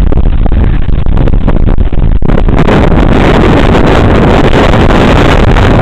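Violent windstorm gusts buffeting the microphone: a loud, continuous rush of wind noise, heaviest in the low end, that turns hissier about two seconds in.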